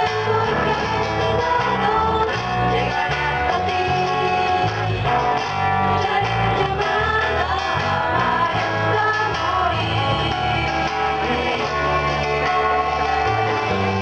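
Live band playing amplified music, guitar over a moving bass line, with singing.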